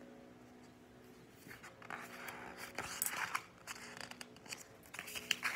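Paper rustling as a page of a large picture book is turned by hand, in a few crinkly bursts starting about a second and a half in and again near the end.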